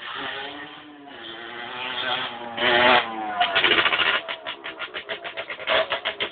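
Aprilia RS 50's 50 cc two-stroke single-cylinder engine revving, rising to a loud peak about three seconds in, then dropping back to a rapid, uneven pulsing of about seven beats a second.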